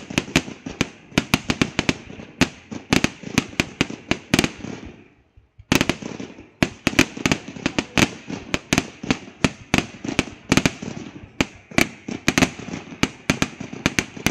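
Fireworks going off in rapid, irregular sharp bangs, several a second and often overlapping. The bangs break off briefly about five seconds in, then start again abruptly.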